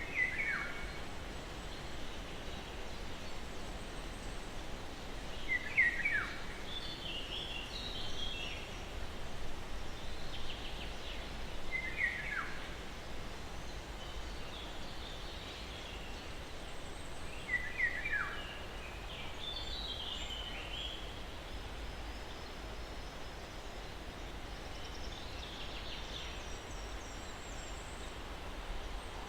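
A steady soft breeze, with several wild birds calling over it. One bird repeats a short call that falls steeply in pitch about every six seconds, four times in all. Others answer with higher, quicker chirps between those calls.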